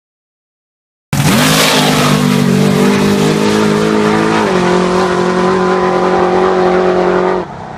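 Drag-racing cars running at full throttle down the strip. The engine note is loud and steady, steps down in pitch once about three and a half seconds in, and falls off in level near the end.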